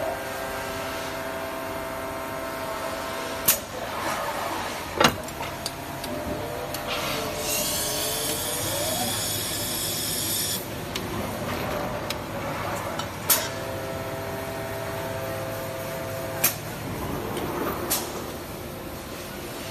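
Polyurethane foam tyre casting machine running with a steady hum, broken by five sharp metallic clacks. A bright hiss lasts about three seconds near the middle.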